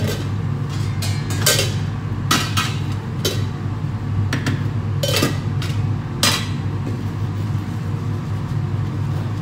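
Kitchen utensils and dishes clattering during food prep: about seven sharp knocks and clinks in the first six or so seconds, then none, over a steady low machine hum.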